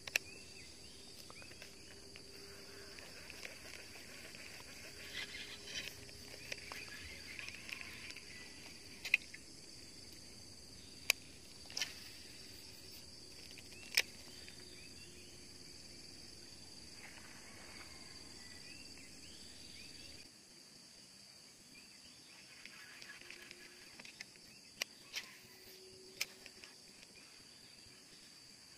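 Insects chirring steadily at a high pitch, with patches of busier chirping, and a few sharp clicks scattered through.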